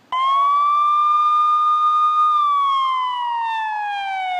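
Police siren wail: one long tone that starts abruptly, climbs slightly and holds for about two seconds, then slowly falls in pitch.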